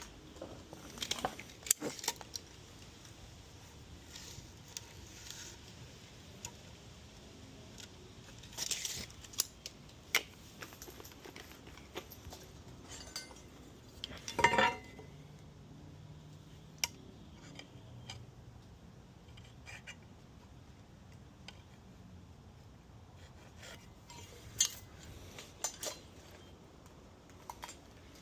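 Scattered clinks, taps and knocks of small hard objects being handled, with quiet stretches between them and a short, louder cluster about halfway through.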